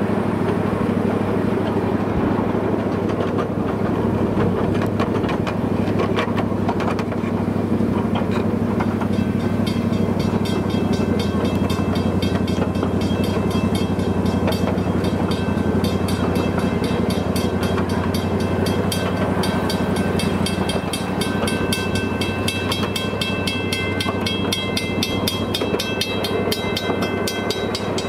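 Miniature park train running along its track, a steady low drone underneath. About nine seconds in, a bell starts ringing in rapid, regular strokes and keeps on.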